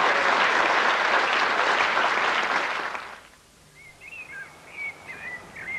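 Audience applauding, dying away about three seconds in. Then faint bird chirping.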